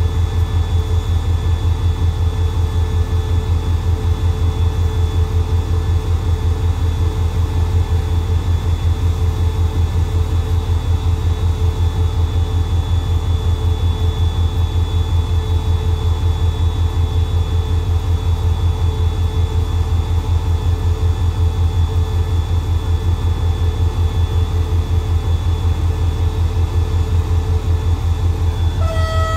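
Diesel locomotive's engine idling steadily at close range: a deep, evenly pulsing throb with a steady higher whine above it.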